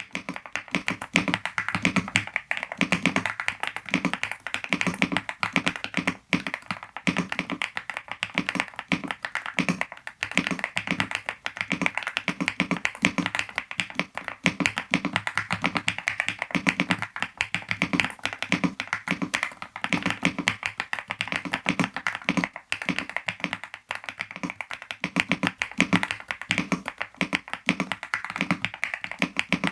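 Continuous fast typing on a Yunzii B98 Pro mechanical keyboard, stock, with Yunzii Candy linear switches in a screwless build. It gives a dense run of keystroke clacks.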